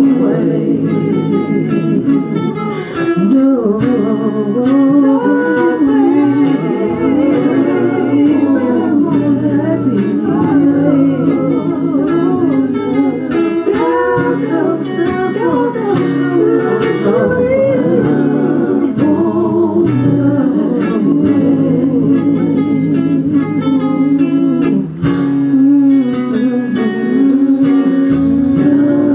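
A slow soul/R&B song playing, in a stretch without lyrics, with guitar over a steady bass line.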